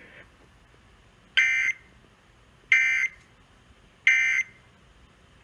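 Emergency Alert System end-of-message data tones: three short, identical bursts of digital warbling data, each about a third of a second long and about 1.3 seconds apart. They signal the end of the alert broadcast.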